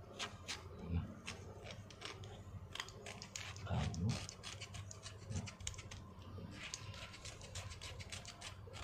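A utility-knife (cutter) blade scraping thick, hardened dead skin off a heel in quick, short strokes, with a couple of low thuds about a second in and again around four seconds.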